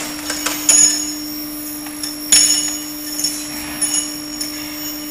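Steel motorcycle connecting rods clinking against each other and the steel tray as they are dropped and handled at an induction annealing line, several sharp ringing clinks with the loudest about two and a half seconds in. A steady machine hum runs underneath.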